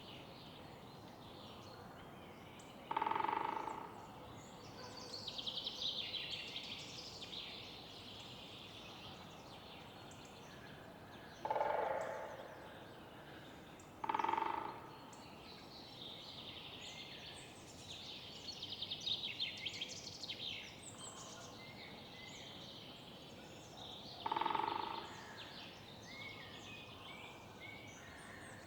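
City-park morning ambience: songbirds singing in high, quick trills over a steady background hum of distant city noise. Four times, spread through the stretch, a louder and lower-pitched single bird call stands out, each under a second long.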